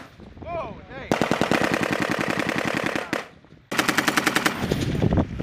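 M240B 7.62 mm belt-fed machine gun firing in automatic bursts: a run of rapid, evenly spaced shots about two seconds long starting about a second in, then a short pause and a second burst that starts near the end.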